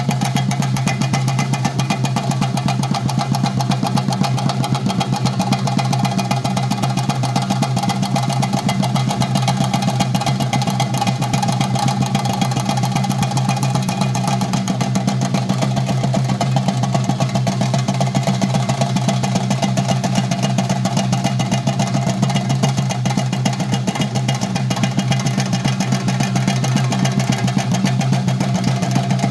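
Chenda drums beaten in a fast, unbroken roll, with a steady low drone underneath.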